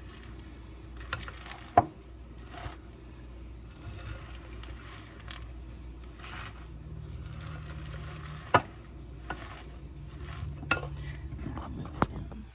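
Crisped rice cereal and Fruity Pebbles being stirred through sticky melted marshmallow in a bowl, with ongoing scraping and rustling. A few sharp knocks of the spoon against the bowl come through it.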